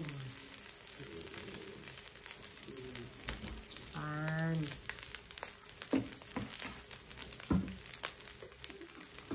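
Fried rice crackling faintly in a hot aluminium wok, with scattered sharp ticks and pops. Faint background voices, with one short voiced call about four seconds in.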